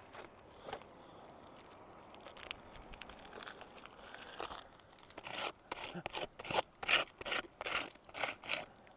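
Gritty crunching strokes on old organic asphalt shingles, faint at first and then a quick run of about three a second from about halfway through.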